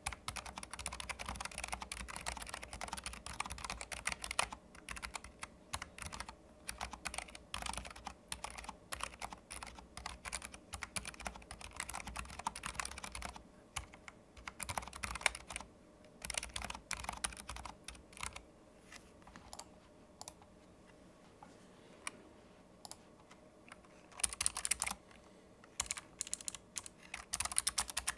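Typing on a Keychron low-profile keyboard with low-profile optical switches: quick runs of key clicks that thin out to a few scattered strokes in the middle, then pick up again near the end.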